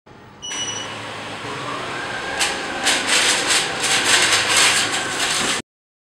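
Ameribot 720 robot vacuum running, its motor and brushes making a steady whir that starts about half a second in with a brief high tone. From about two and a half seconds in, dry soybeans rattle and clatter as they are swept and sucked up. The sound cuts off suddenly near the end.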